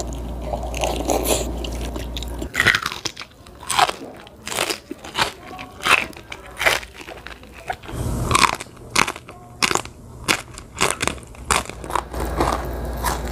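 Close-miked eating: crisp food bitten and chewed, with many sharp crunches from about two and a half seconds in until near the end.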